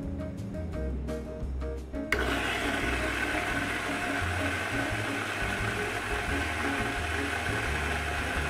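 Electric burr coffee grinder switched on about two seconds in, then grinding coffee beans at an extra-fine setting with a steady, even grinding noise over background jazz music.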